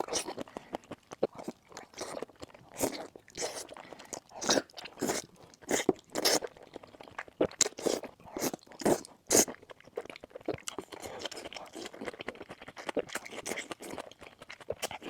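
Close-miked crunching and chewing of food, with irregular sharp crunches for about the first ten seconds, then softer, steadier chewing.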